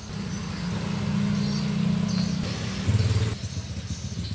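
A motorcycle going past: its engine note builds over the first second, runs steadily, then drops lower and falls away about three seconds in.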